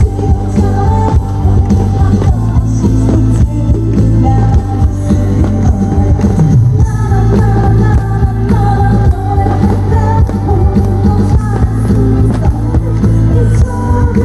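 A woman singing into a microphone over a loud amplified backing track with a steady beat, heard through the stage loudspeakers.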